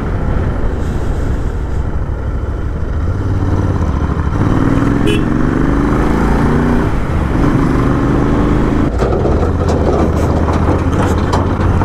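A motorcycle engine running at road speed, with wind noise on the handlebar microphone, on a rough unpaved road. From about four seconds in, a louder engine note with a shifting pitch comes in for a few seconds as the bike passes a bus.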